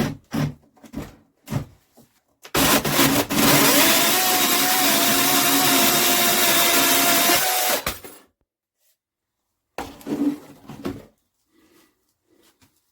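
Bosch UniversalChain 18 cordless 18 V electric chainsaw starting about two and a half seconds in, settling into a steady whine, and stopping near eight seconds. Short handling knocks come before and after.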